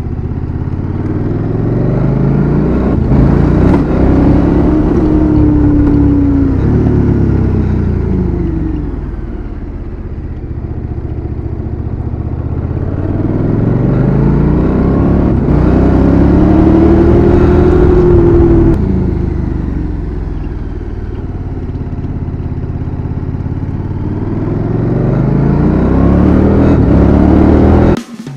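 KTM 1290 Super Adventure R's LC8 V-twin engine pulling hard on the road, its revs rising and falling in long sweeps. The pitch climbs to a peak about five seconds in and again around seventeen seconds in, drops off sharply just after, and rises once more near the end.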